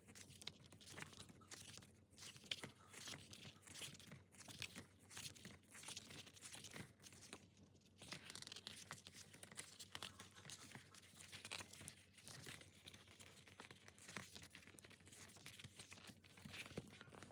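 Faint crinkling, rustling and tearing of album packaging as it is handled and opened, an irregular run of small crackles and rips.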